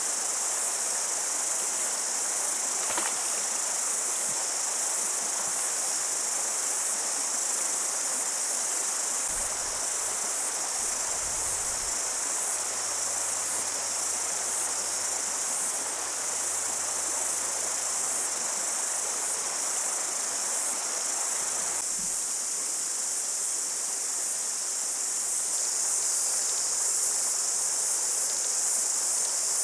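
Steady high-pitched insect chorus over the even rush of a rocky stream. The stream's rush drops back about two-thirds of the way through.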